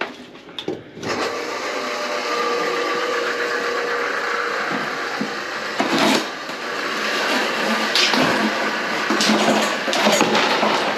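An electric motor starts about a second in and runs steadily, with occasional knocks and clatters over it.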